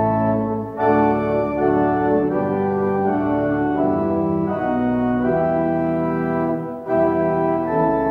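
Organ playing a hymn tune in held chords that change every second or so, with short breaks between phrases about one second and seven seconds in.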